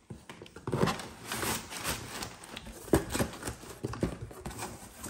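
Packaging and makeup items being handled: irregular rustles with light knocks and clicks, the sharpest about three seconds in.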